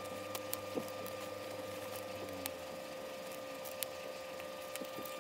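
Faint scattered clicks and taps of hands handling a 3D printer's LCD display circuit board and its small screws, over a steady faint tone.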